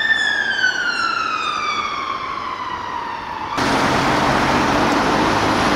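Fire engine siren on a slow wail, falling steadily in pitch for about three and a half seconds, then cut off abruptly by loud street traffic noise.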